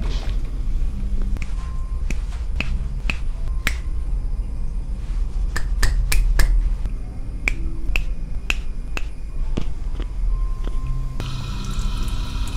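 Sharp snapping clicks at an irregular pace, well over a dozen, from hands massaging a person's arm and hand, over a low steady hum. Near the end a steady hiss comes in.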